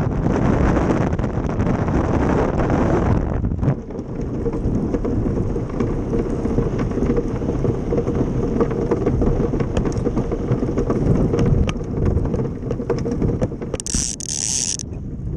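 Ice boat's steel runners rumbling and scraping over lake ice at speed, with wind buffeting the microphone and a faint steady hum through the middle. A brief hiss near the end.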